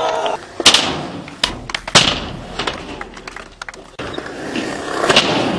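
Skateboard rolling on concrete with sharp cracks of the board popping and slapping down, the loudest about two-thirds of a second in, at two seconds, and again near the end, with smaller clicks between.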